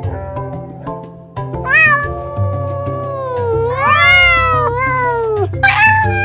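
Domestic cat meowing: one long, drawn-out meow that dips and rises in pitch over about four seconds, then a shorter, higher meow near the end, over background music.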